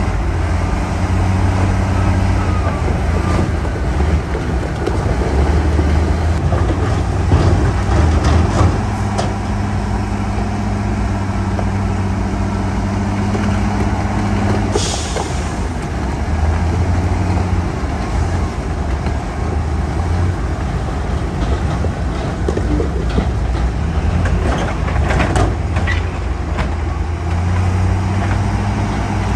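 Heavy diesel engines of dump trucks and a bulldozer running, their low drone rising and falling, with a short air-brake hiss about halfway through and scattered knocks.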